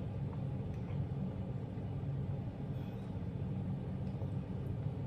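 Steady low hum of a running room air conditioner, with a few faint small clicks over it.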